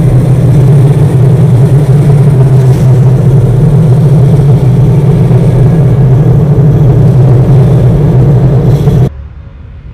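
Loud, steady low rumble of an electric train running, with a hiss over it. It cuts off abruptly about nine seconds in, leaving a quiet fading tail.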